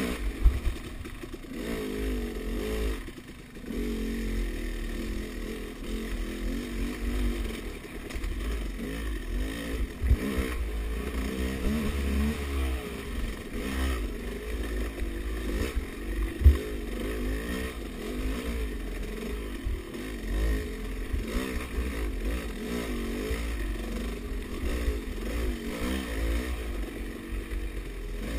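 Off-road dirt bike engine revving up and down constantly as it is ridden hard along a rough trail. It eases off briefly a few seconds in, and a few sharp knocks come through, the loudest about halfway through.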